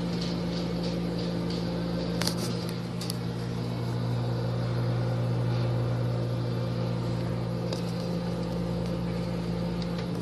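Microwave oven running: a steady electrical hum with a couple of faint clicks about two and three seconds in.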